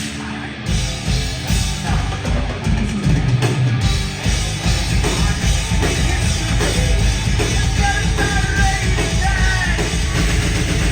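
Heavy rock band playing loudly, with a pounding drum kit and a voice singing over it from about halfway through.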